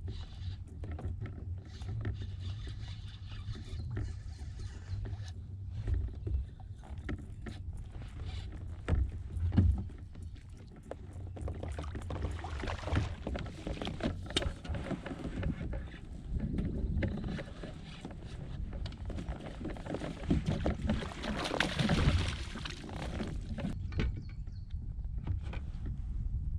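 Kayak on the water: short knocks and handling noises against the hull, with swells of water noise twice and a steady low rumble underneath.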